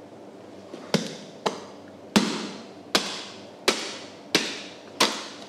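A heavy knife chopping into a giant bluefin tuna's head: seven sharp, ringing strikes, about one every 0.7 seconds.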